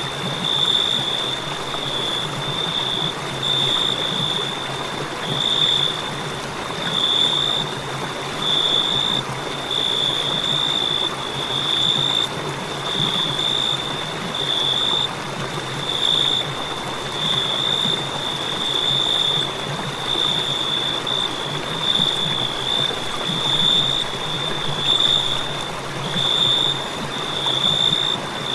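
Crickets trilling: a continuous high-pitched chirring that swells and fades about every second and a half, over a steady background hiss.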